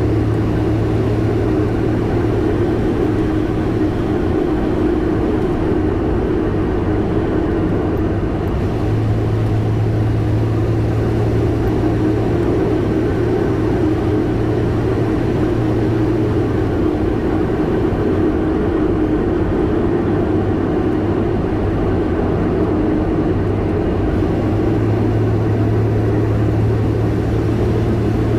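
Semi-truck engine running under steady load with road noise while cruising, a constant low drone that holds level throughout.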